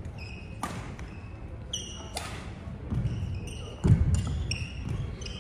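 Badminton play on a wooden sports-hall floor: sharp racket strikes on the shuttlecock, sneakers squeaking several times, and heavy footfalls thudding, the loudest about four seconds in.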